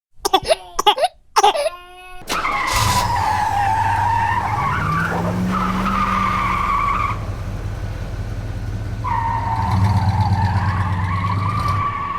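Racing car engine running with long tyre squeals: a high whine that dips and wavers over a steady low engine hum. The squeal breaks off about seven seconds in and comes back about two seconds later. A few short, sharp sounds come before it in the first two seconds.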